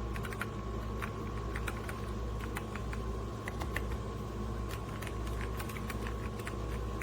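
Typing on a DIERYA T68SE 60% mechanical keyboard with brown switches: light, irregular key clacks over a steady background hum.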